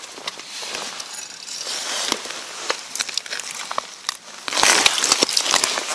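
Crunching and crackling of ice and slush around an ice-fishing hole as a carp is hauled up through it and gripped by a gloved hand, with many sharp clicks. It is loudest and densest in the last second or so.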